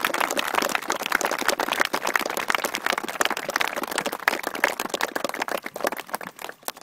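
Outdoor crowd applauding, with one pair of hands clapping sharply close by. The applause thins out and dies away near the end.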